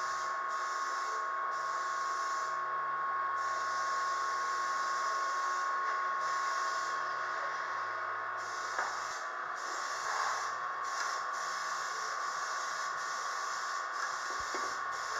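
Steady hiss with a constant high-pitched hum and a faint low tone that shifts pitch every second or so; no distinct tool or work sounds.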